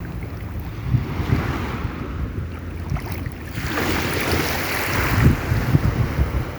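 Sea waves washing in, one wave surging up about halfway through, with wind buffeting the microphone in low gusts.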